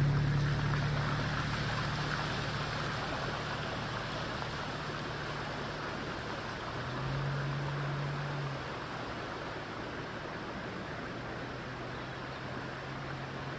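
A Volvo 850's five-cylinder engine drives past and away through shallow floodwater, fading as it goes, over an even rush of water and tyre spray. The engine note swells briefly about halfway through.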